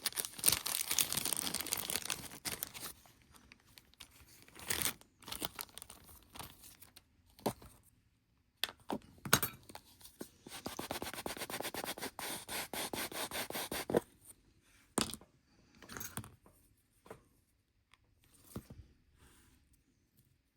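Crinkling and rustling of a small plastic parts packet as a new case O-ring is taken out, in two long stretches, with scattered small clicks and taps of the watch parts being handled on the bench.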